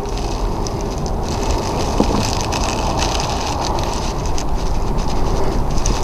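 Steady low rumbling noise with a single light click about two seconds in.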